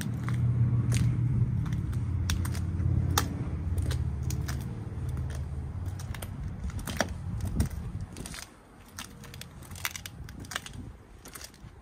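Footsteps on brick paving with scattered clicks and scuffs, over a low steady hum that fades out about halfway through.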